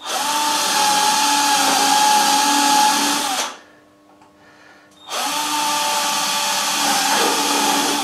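Handheld power drill boring holes in the wooden boards of a birdhouse: two runs of about three seconds each, with a short pause between them.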